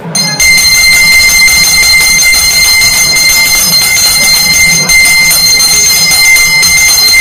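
Brass puja hand bell (ghanta) rung rapidly and continuously in a Hindu puja, a loud, steady, high ringing that starts abruptly.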